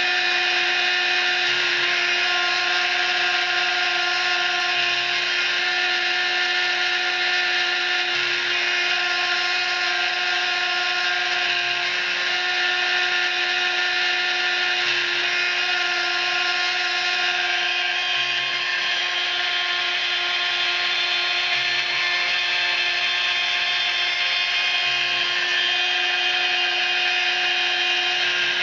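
CNC milling machine's spindle running steadily while a small end mill cuts a hard drive platter: a high whine over the hiss of the cut. One tone in the whine breaks off briefly about every three and a half seconds.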